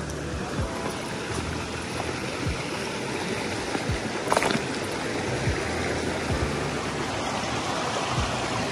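Shallow river running over rocks and pebbles with a steady rushing, crossed by occasional footsteps on the river stones and one sharper clack of stone about halfway.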